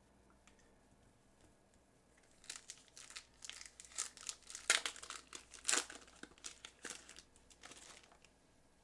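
A trading card pack wrapper being torn open and crinkled by hand: a run of irregular crackles that starts about two and a half seconds in and dies away near the end.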